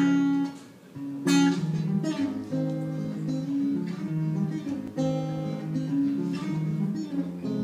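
Solo acoustic guitar playing the opening chords of a song, strummed and picked, with the loudest strum about a second in.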